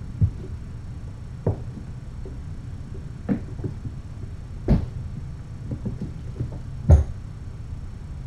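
Kittens romping on the floor: about five short, dull thumps and knocks over a steady low hum, the loudest about seven seconds in.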